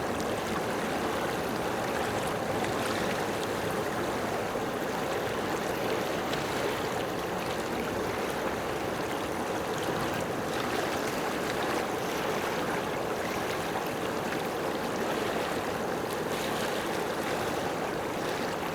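Steady rushing noise like running water. It starts abruptly, holds an even level throughout, and cuts off suddenly at the end.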